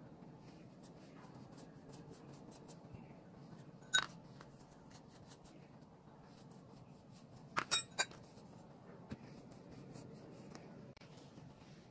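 Sharp clinks of a utensil against tableware: one about four seconds in and a quick group of three near eight seconds, over faint handling ticks in a small room.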